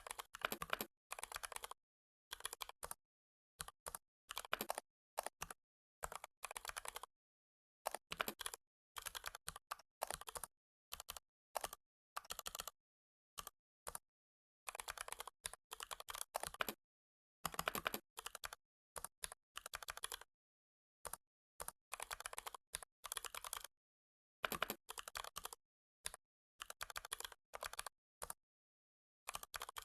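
Computer keyboard typing in short runs of rapid keystrokes, broken by pauses of dead silence.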